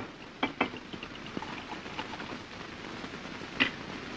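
Steady hiss of an early sound-film soundtrack, with a few short knocks, the loudest about three and a half seconds in.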